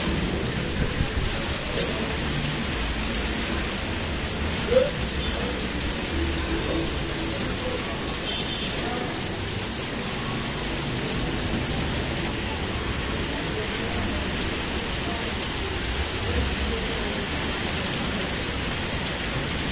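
Heavy rain pouring steadily, an even hiss, with two sharp knocks about two and five seconds in.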